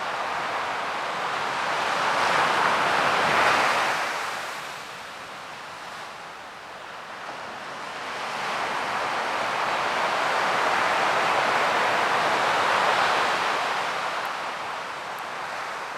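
Ocean waves breaking and washing in: one wave surges to a peak about three seconds in and fades, then a second, longer wash builds from about eight seconds and dies away near the end.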